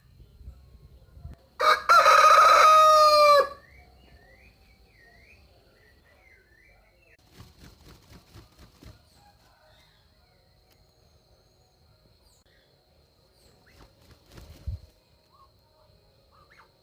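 A rooster crowing once: a single loud crow lasting about two seconds, starting a second and a half in and sliding down in pitch at the end.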